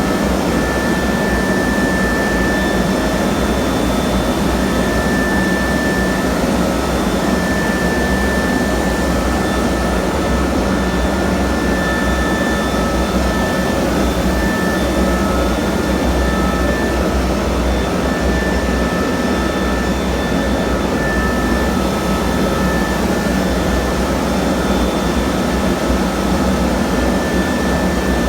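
Concrete grinding machine running steadily on a slab: a loud, unbroken rushing noise with a steady high whine over it.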